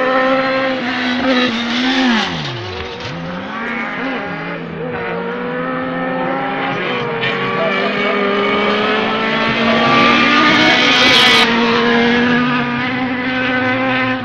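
Autocross buggy engines racing on a dirt track, several at once, revving up and down through gear changes. One engine's pitch drops steeply about two seconds in, and a short hiss comes about ten seconds in.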